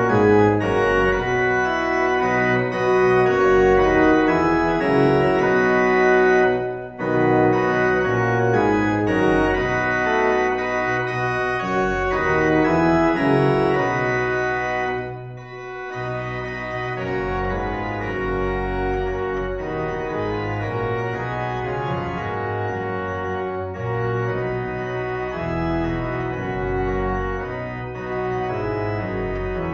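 Church organ playing sustained chords, with short breaks between phrases about 7 and 15 seconds in, somewhat quieter after the second break.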